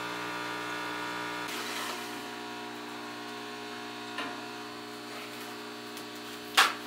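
Steady electrical hum of the water pump circulating coolant through the freshly flooded CO2 laser tube, working air bubbles out of the cooling loop. A short hiss comes about a second and a half in, and a sharp knock sounds near the end.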